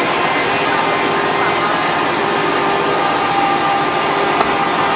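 HG-1530 linear automatic-tool-change CNC router running, its spindle cutting a wooden board as the head travels, heard as a steady whining hum with a dust-extraction rush and several held tones. A brief tick sounds near the end.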